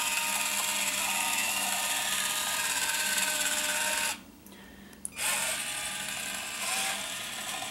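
Small motor drive of an RC submarine depth stabilizer's equalizing tank whirring as it moves the weight along the tube. It cuts off abruptly about four seconds in as the weight reaches an end sensor, gives a click about a second later, and starts whirring again.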